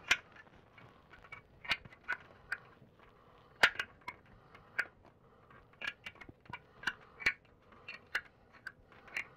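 Irregular sharp clicks and light taps, about two a second, the loudest about a third of the way in, from hands fitting a window blind's headrail and the small wood blocks packed into its end brackets.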